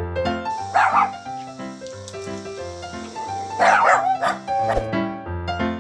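A dog barking in two bursts, about a second in and again a few seconds later, over background music.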